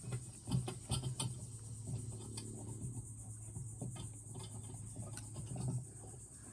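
Scattered light clicks and taps of hands handling plastic fittings, over a steady high insect drone.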